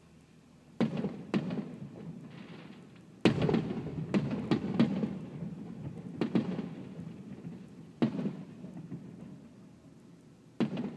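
Aerial firework shells bursting in a run of booms, each trailing off in a rumble. The loudest, quickest cluster of bursts comes about three seconds in, with a last boom near the end.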